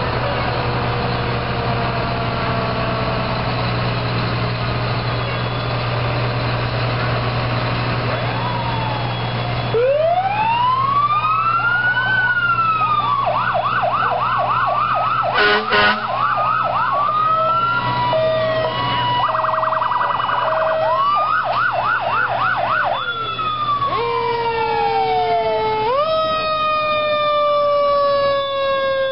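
Fire truck sirens running through their patterns. For the first ten seconds a siren tone falls slowly in pitch over a steady diesel engine rumble. Then the sirens give a rising-and-falling wail, a fast yelp of repeated quick sweeps, and alternating high-low tones, with a short horn blast about midway.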